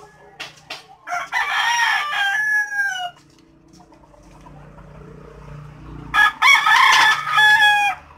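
A rooster crowing twice: the first long crow starts about a second in and falls in pitch at its end, and the second starts about six seconds in.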